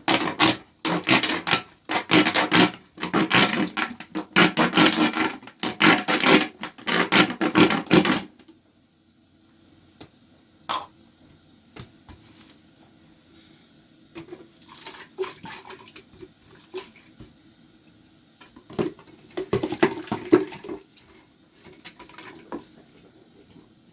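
Water splashing and sloshing in a container for about eight seconds, then a few light knocks, and a shorter splash near the end.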